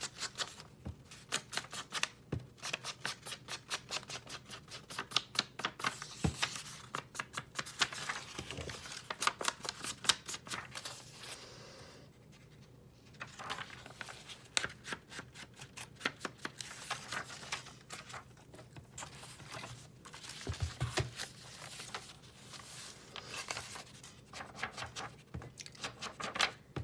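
Paper pages of a book being handled and turned, giving crisp, scratchy rustling in quick runs of small crackles, with a short lull about halfway through.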